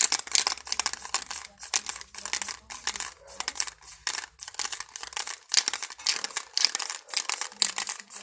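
Aerosol spray paint can hissing in rapid short bursts, several a second, as the nozzle is pressed again and again to lay down short strokes.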